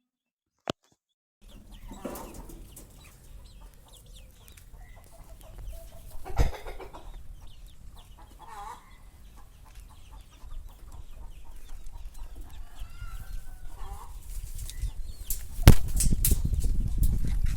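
Aseel chickens clucking with short scattered calls. A sharp knock comes about six seconds in, and a louder one near the end is followed by low rumbling.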